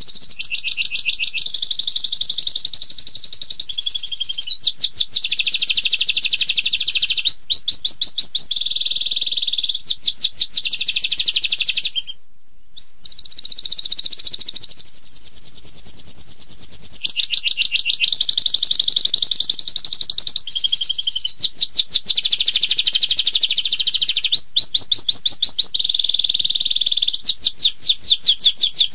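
Domestic canary singing a long, unbroken song of rapid high trills and rolls. The song moves from phrase to phrase every second or two, with a short pause about twelve seconds in.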